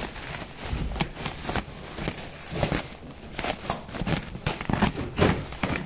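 Plastic stretch wrap and bubble wrap crinkling and rustling as hands pull and pick at a taped cardboard shipping box, in irregular crackles.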